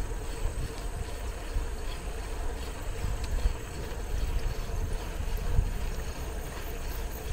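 Wind rumbling on the microphone with tyre and road noise from a city bicycle being ridden along at a steady pace.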